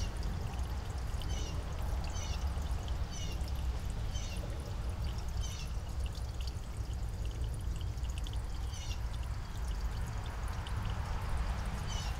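Outdoor background noise: a steady low rumble, with a series of short high chirps that drop in pitch. The chirps come about once a second through the first half, then twice more near the end.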